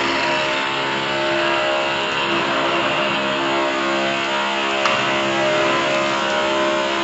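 Electric concrete sander running steadily, a constant motor hum under a wide grinding hiss.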